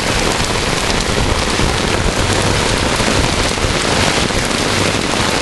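Heavy rain with hail mixed in, pouring steadily onto pavement and onto a small umbrella overhead, a dense even hiss with no let-up.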